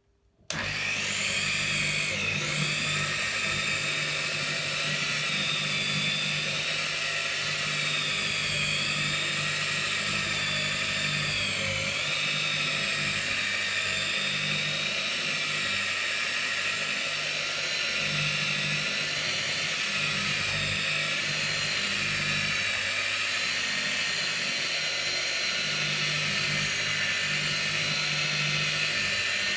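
Electric rotary polisher with a foam pad switched on about half a second in, then running steadily as it polishes a car's clear coat. Its motor whine wavers slightly in pitch now and then.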